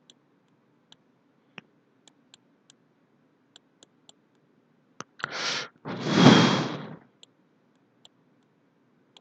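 Faint, scattered taps of a stylus on a tablet while numbers are handwritten. About five seconds in comes a loud, noisy rush close to the microphone in two parts, the second longer and louder, lasting about a second.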